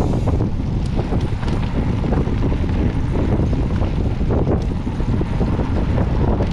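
Wind rushing over a handlebar-mounted action camera's microphone, over the constant rumble of mountain-bike tyres on a dirt trail, with many small rattles and knocks from the bike.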